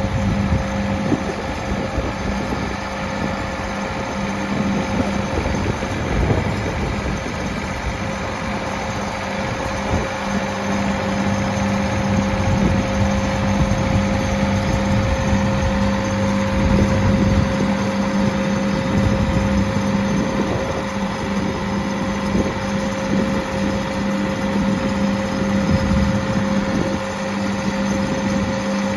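57 hp Perkins diesel engine of a Massey Ferguson 253 tractor running steadily while its front loader's hydraulics raise the bucket, with a constant hum and a steady tone throughout.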